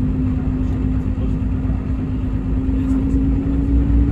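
Hino RG230K coach's diesel drivetrain heard from inside the cabin while driving: a steady whine slowly rising in pitch over a low road rumble.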